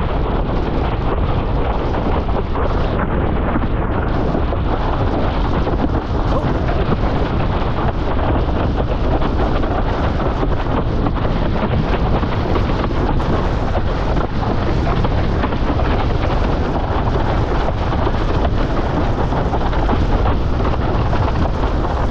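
Strong wind buffeting the microphone: a loud, steady rumble with no let-up.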